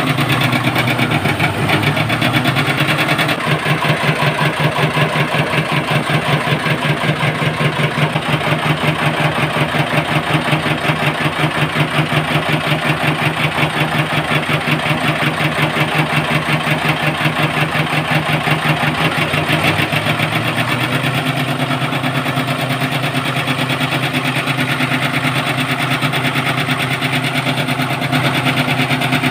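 A portable rice thresher's small engine running steadily at a fast, even beat.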